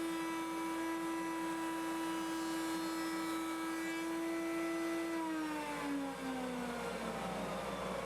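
Table-mounted router running at full speed with a steady high whine, then switched off about five seconds in, its pitch falling as the motor and bit spin down.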